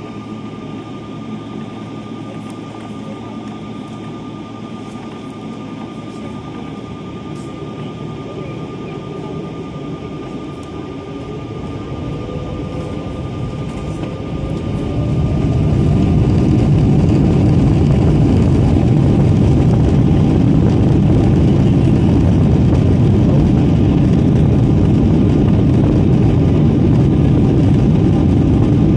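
Boeing 777-200ER engines heard from inside the cabin. They run at low power at first under a steady thin tone. About halfway through they spool up with a rising whine, and the sound jumps to loud, steady takeoff thrust mixed with runway rumble as the takeoff roll begins.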